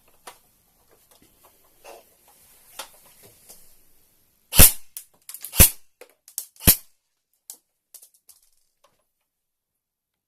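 Three sharp shots from an airsoft rifle about a second apart, the BBs striking the plastic goggles, with lighter clicks and taps between and after them. Faint handling clicks come before the first shot.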